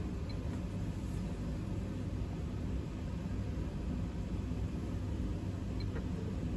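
Steady low room rumble of lab background noise, with two faint clicks from the electronic balance's buttons being pressed, one just after the start and one near the end.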